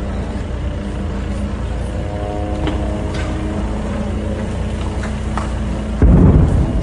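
Motor vehicle engine running steadily, heard from on board, with a few light knocks. A loud low rumble lasts about half a second near the end.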